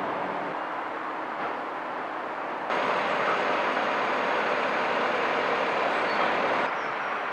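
Steady hum of road traffic, which gets abruptly louder and brighter about three seconds in.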